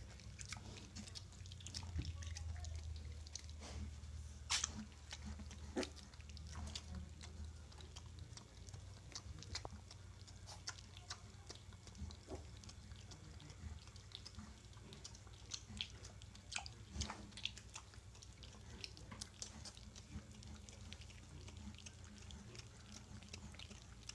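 Mini pig piglets suckling, with many soft, scattered smacking clicks from their mouths. A low steady hum lies under them, louder for the first eight seconds or so.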